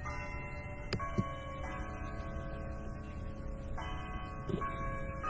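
Background music of sustained chords that change every second or two, with a sharp click about a second in.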